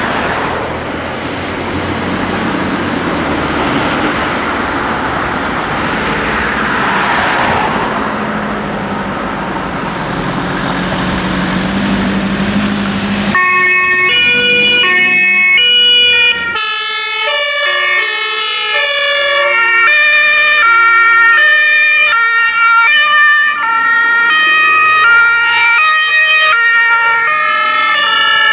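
A Mercedes Sprinter ambulance drives off with engine and tyre noise. About halfway through this gives way to the two-tone sirens of several emergency vehicles sounding at once, their tones stepping up and down out of step with each other.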